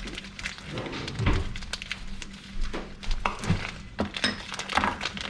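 Kitchen work on a cutting board: irregular clicks and knocks of a knife and utensils, with a few heavier thuds.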